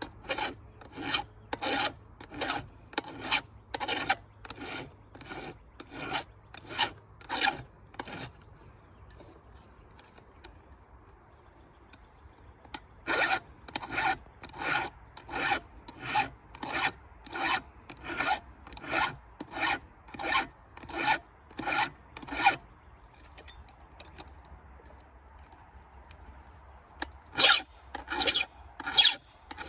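File strokes on a chainsaw chain: a hand file rasps across the teeth about twice a second in three runs, with two pauses of several seconds between them.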